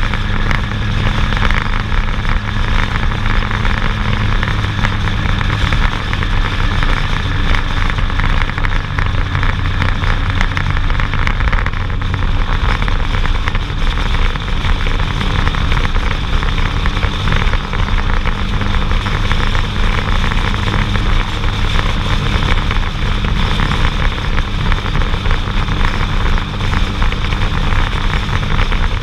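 Motorcycle engine running at cruising speed, heard from the bike being ridden, under heavy wind rush on the onboard camera's microphone. The engine note is steady for about the first twelve seconds, then less even.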